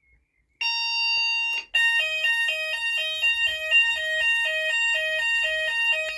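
Fire alarm sounders going into fire as the panel's output delay runs out: a steady tone starts about half a second in, breaks off briefly, then changes to an alternating low-high two-tone pattern about twice a second over a steady higher tone, the Hochiki alternating fire tone.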